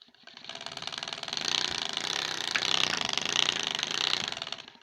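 A card taped to a BMX frame, slapped by the spokes of the spinning wheel: a rapid clatter that builds over the first second and a half, holds, then dies away near the end. Quite loud, though the card is catching on the spokes.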